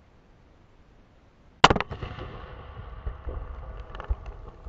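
A single loud firework blast about a second and a half in, blowing a watermelon apart, followed by a fading echo, a low rumble and scattered sharp ticks of flying debris.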